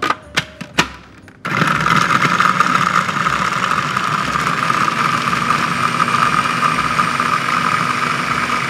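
A few clicks, then an electric food processor starts suddenly about one and a half seconds in and runs steadily, its blades chopping quartered red onions almost to a pulp.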